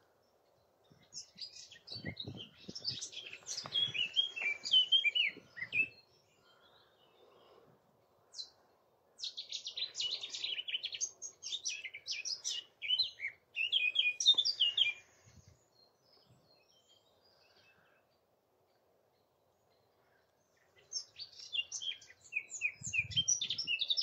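A songbird singing three long, rapid phrases of varied high chirps and trills, each several seconds long, with pauses of a few seconds between them.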